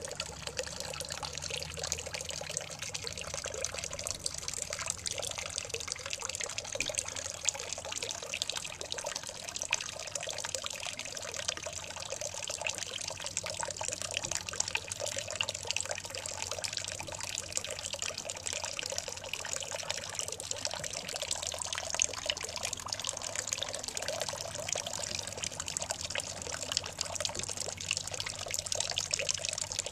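Pet water fountain running: a steady trickle and splash of flowing water, with a faint low hum beneath.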